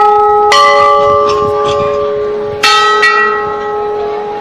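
Hanging brass temple bells rung by hand: a strike about half a second in and another about two and a half seconds in. Each rings on with long, slowly fading tones that overlap the one before.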